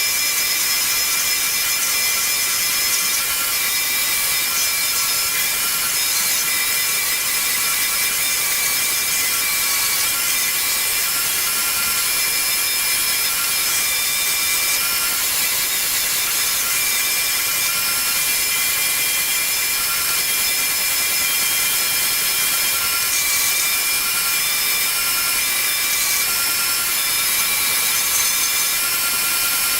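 Power sander running steadily against cherry and walnut wood, a continuous hiss with a steady motor whine.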